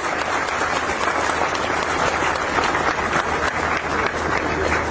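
Audience applauding, a dense, steady clapping that runs through the whole stretch.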